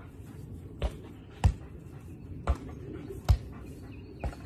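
A volleyball being hit back and forth between a person's forearms and a golden retriever's head. There are five sharp smacks, roughly one a second.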